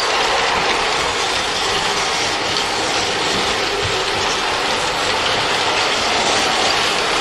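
G-scale model steam tank locomotive running along the track: a steady mechanical whir and rattle from its electric motor and gears and its wheels rolling on the rails.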